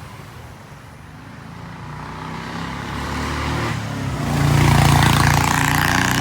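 An engine growing steadily louder over several seconds as it draws near, then running loudly near the end.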